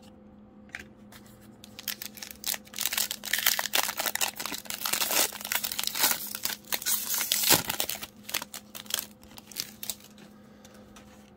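Foil wrapper of a Donruss basketball trading-card pack crinkling and tearing as it is ripped open, starting about two seconds in and dying away near the end.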